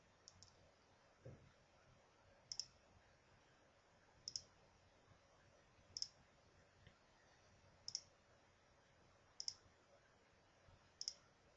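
Faint computer mouse clicks, one about every one and a half to two seconds, stepping through the moves on an online chess board.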